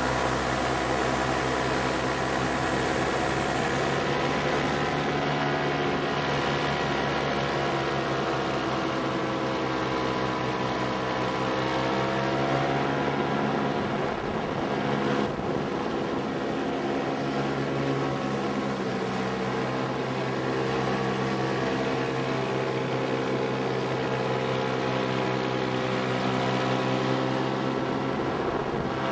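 Paramotor engine and propeller droning steadily in flight, the pitch drifting slightly up and down.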